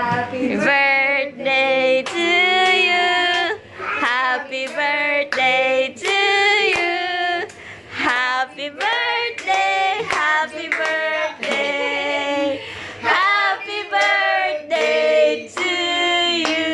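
Singing voices carrying a melody, with many long held notes.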